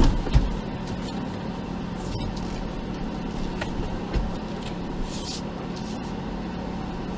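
Jeep engine running steadily at low revs as it crawls over rocks. A couple of low thumps come right at the start and another about four seconds in, with a short hiss near five seconds.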